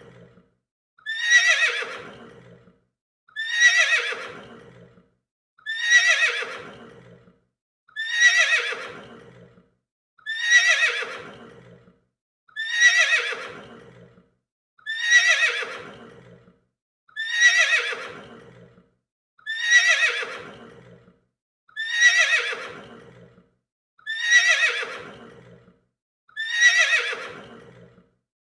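A horse whinnying, the same neigh repeated about every two seconds. Each call starts high and falls away in pitch, over about a second and a half.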